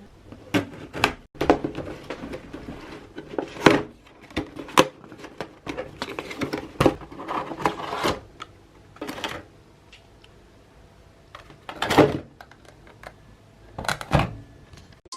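Irregular clicks, knocks and rustles of hands handling PC components and their packaging at close range, with a few louder knocks scattered through.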